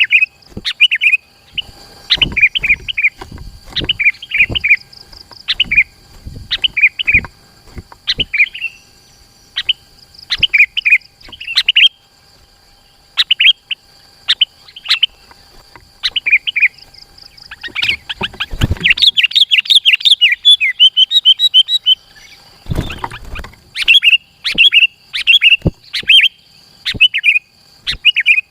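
Sooty-headed bulbul (kutilang) singing in short, loud, bubbly chirped phrases repeated every second or so, with a denser run of rapid notes about two-thirds of the way through.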